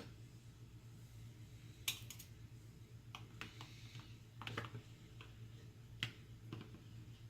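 A spoon clicking and knocking against a microwave egg poacher while poached eggs are spooned out: about eight light, scattered clicks, the sharpest about two seconds in and near six seconds. A low steady hum runs underneath.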